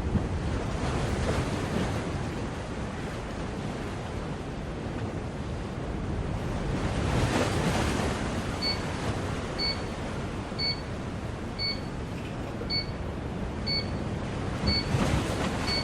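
Steady rushing noise, like wind or handling noise on the microphone. About nine seconds in, a digital alarm clock's alarm starts beeping: short, high beeps about once a second.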